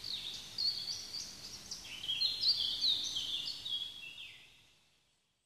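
Several small songbirds chirping and singing over one another in quick, high notes, fading out about four and a half seconds in.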